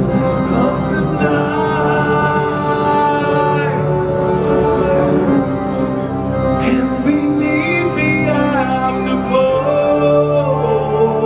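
Live progressive metal band playing, with held keyboard notes, guitar, bass and drums under a male lead vocal.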